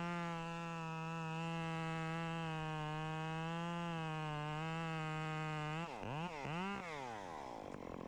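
Chainsaw running at high revs with a steady, slightly wavering note. About six seconds in the revs dip and climb back twice, then drop toward idle.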